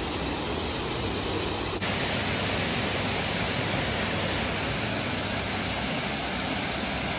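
Steady rushing roar of Brandywine Falls, a waterfall, an even hiss with no pauses. The tone shifts slightly at a cut about two seconds in.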